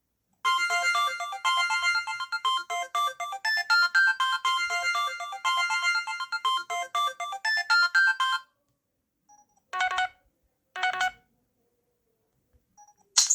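LG BL20 Chocolate mobile phone playing a polyphonic ringtone, a quick melody of short notes lasting about eight seconds. After a pause come two short bursts of notes about a second apart, and another, brighter tone starts right at the end.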